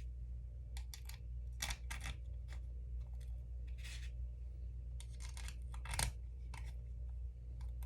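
Small screws clicking and scraping as they are fitted into the holes of an aluminum bracket on a plastic trolling-motor remote: scattered light clicks over a low steady hum.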